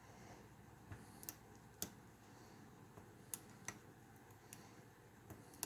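Faint, irregular sharp clicks of a lock pick working the pins of a Best small-format interchangeable core, about half a dozen ticks spread unevenly over the few seconds.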